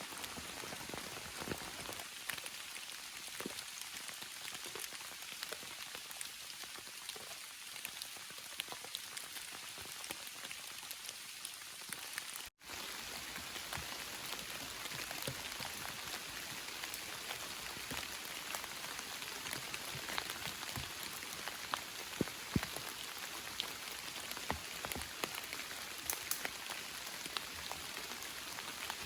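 Steady rain falling, a constant hiss scattered with sharp single drop hits, some louder ones in the second half. The sound cuts out for an instant about twelve seconds in.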